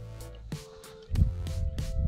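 Background music with a steady beat and held tones, growing louder about a second in.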